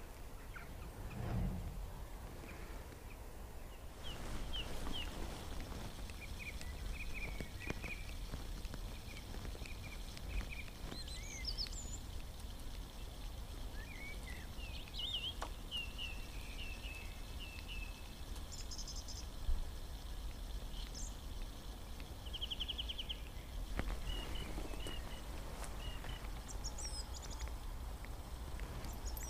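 Birds calling with scattered short chirps and trills over a steady low background rumble, with a soft thump about a second in and a single sharp click partway through.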